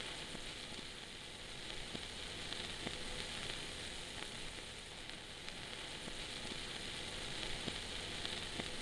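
Steady hiss with scattered faint clicks and crackle, the surface noise of an old record.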